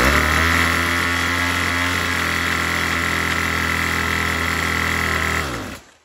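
Troy-Bilt two-stroke string trimmer engine running steadily, now starting right up after its carburetor was cleaned. Near the end it stops, its pitch dropping as it runs down.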